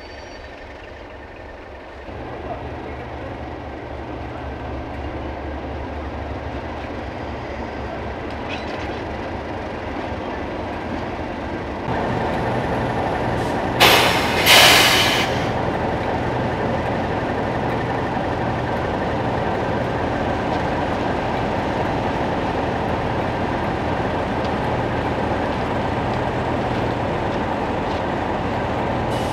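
Class 37 diesel locomotive's English Electric V12 engine running as it draws its train slowly into the platform, growing louder as it comes close, then running steadily. About halfway through come two short, loud hisses.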